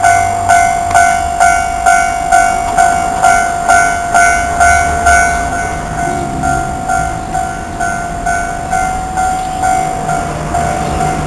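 Japanese railway level-crossing warning bell ringing, a repeating ding about twice a second that grows somewhat softer partway through, with a low rumble underneath.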